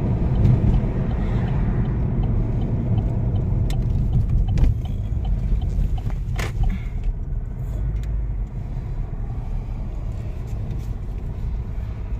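Steady low road and engine rumble heard inside a moving car's cabin, easing a little about halfway through as the car slows into a parking lot. Two sharp clicks come in the middle.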